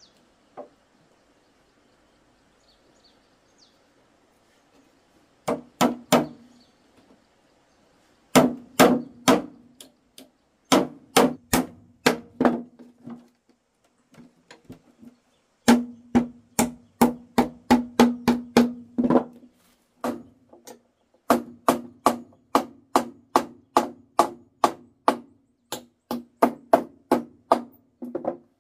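A hammer striking wood in runs of quick blows, about two or three a second, each hit ringing briefly, with short pauses between the runs.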